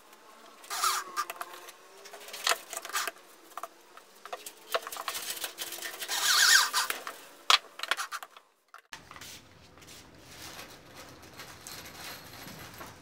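Pine boards clicking and knocking as they are handled on a plywood workbench, then a power drill runs briefly into the centre of the cross joint about six seconds in, the loudest sound. After an abrupt change a little later, only a quieter steady hum with faint ticks remains.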